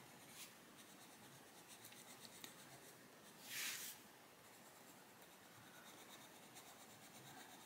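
Faint scratching of a Castle Arts Pasteltint coloured pencil shading on colouring-book paper, with one brief, louder soft hiss a little past halfway through.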